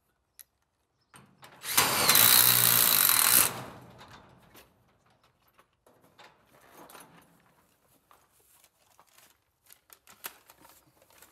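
Cordless drill-driver running in one burst of about two seconds while fastening a garage-door slide lock to the door, followed by faint clicks and knocks of handling the hardware.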